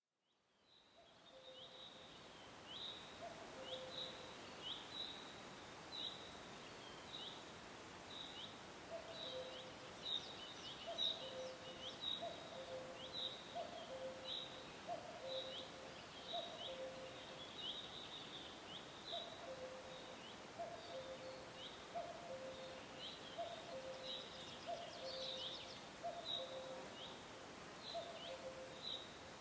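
Cuckoos calling their repeated two-note "cu-ckoo", a higher note dropping to a lower one, about once every second or so. Another small bird chirps over them, a short high note repeated constantly, with forest background noise. The sound fades in over the first second.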